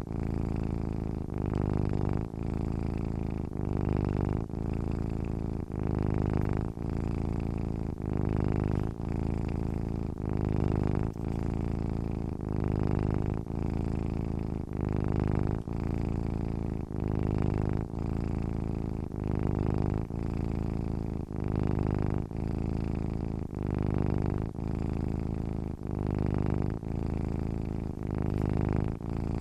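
Domestic cat purring steadily while asleep, the low rumble pausing briefly about once a second as it switches between breathing in and breathing out.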